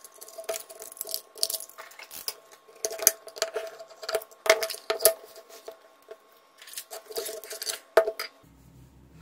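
Repeated clinks, knocks and scrapes of a sheet-metal power-supply case being handled and taken apart with a screwdriver, each knock with a metallic ring, as the circuit board is lifted out. Near the end the clatter stops and a faint low steady hum is left.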